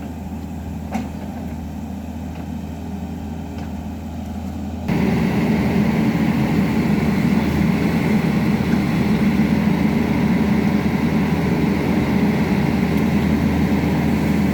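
Excavator's diesel engine running steadily, then suddenly louder about five seconds in and staying at the higher level.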